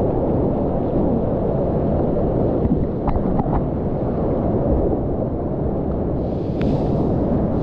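Whitewater rapids rushing loudly: a deep, steady rumble of falling water, with a brighter hiss joining near the end.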